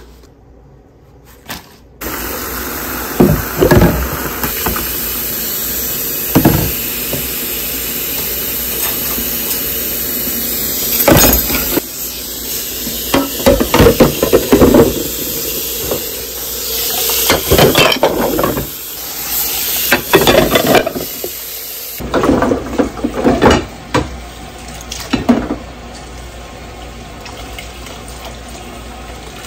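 Kitchen tap turned on about two seconds in and running into the sink during hand dishwashing, with repeated clatters and knocks of dishes being handled and rinsed. The flow changes about two-thirds of the way through.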